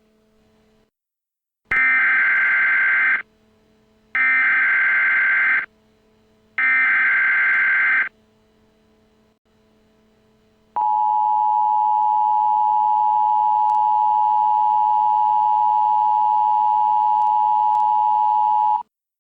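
Emergency Alert System opening: three bursts of SAME header data tones about a second apart, then the EAS two-tone attention signal held steady for about eight seconds before it cuts off.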